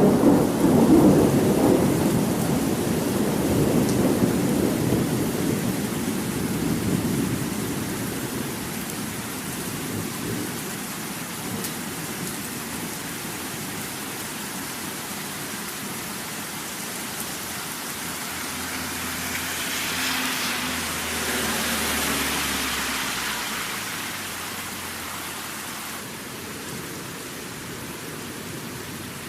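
Thunderstorm: steady rain with a long roll of thunder dying away over the first several seconds and another rumble swelling about two-thirds of the way through.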